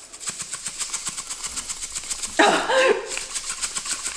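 A shaker jar of sesame seeds being shaken hard over a glass bowl: a fast, even rattle of seeds against the jar and falling onto the bowl and table. A short, strained vocal sound from the person shaking breaks in about two and a half seconds in.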